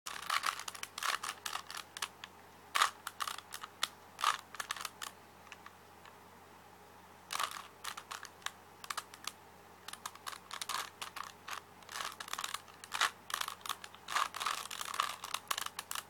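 Plastic Rubik's cube being twisted by hand: quick runs of clicking and clacking as its layers turn, with a pause of a couple of seconds near the middle.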